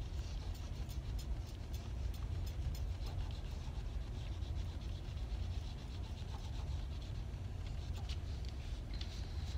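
Soft brushing and scratching of a water brush's bristles worked back and forth over pastel-coloured copy paper, with scattered small ticks, over a steady low hum.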